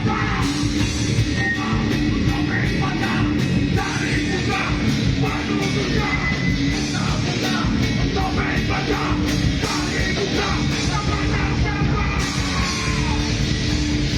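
Live punk/metal band playing loud distorted rock with yelled vocals.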